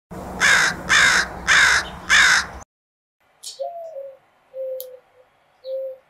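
American crow cawing four times, harsh and loud, about two caws a second, stopping abruptly under three seconds in. After a short pause come a few soft, low cooing notes, the first one rising then falling, and scattered high chirps.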